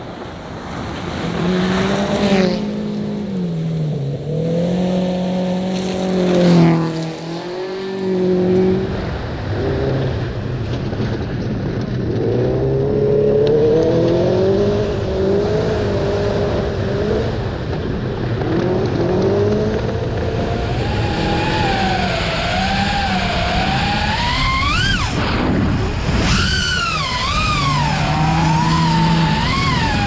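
Subaru rally car's flat-four boxer engine driven hard, its revs climbing and dropping again and again, with a brief dip in the sound about seven seconds in. In the last third the revs swing up and down quickly, peaking sharply about twenty-five seconds in.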